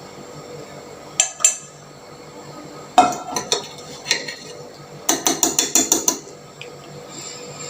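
A metal spoon clinking against the tea pan: a few scattered knocks, then a quick run of about eight clinks in a second as country sugar is stirred into the boiled tea to dissolve it.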